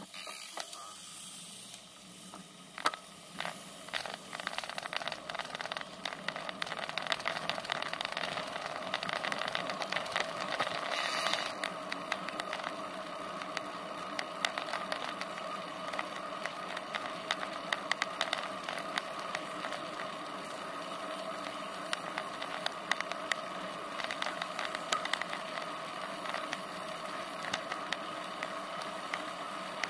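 Road bicycle riding on asphalt, heard through a camera mounted on the bike: a steady hiss of tyres and wind, with frequent rattling clicks as the mount jolts over the road. It is quieter for the first couple of seconds and grows louder as the bike picks up speed.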